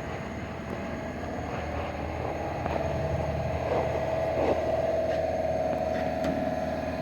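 Steady mechanical running: a low hum with a steady whine that grows louder about two and a half seconds in.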